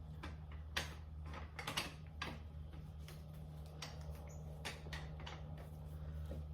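Irregular clicks and metallic knocks from a bead breaker and tire changer being handled and set against a motorcycle wheel, over a steady low electrical hum.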